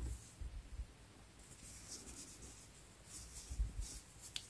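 Crochet hook and yarn faintly scratching and rustling as double crochet stitches are worked, with a small click near the end.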